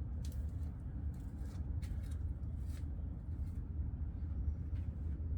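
Steady low outdoor rumble with a few faint, scattered clicks.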